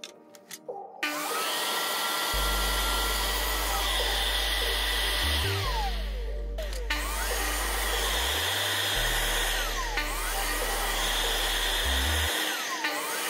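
Corded miter saw's motor whining as it spins up and winds down several times while short cuts are made in wooden strips, over background music with a steady bass line.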